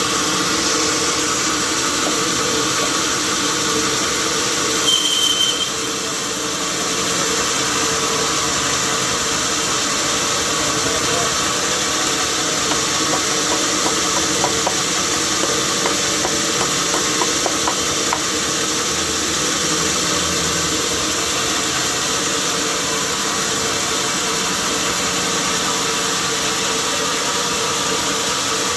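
Sawmill machinery running steadily: a motor's hum under a constant hiss, with a short high squeal about five seconds in and a run of faint ticks in the middle.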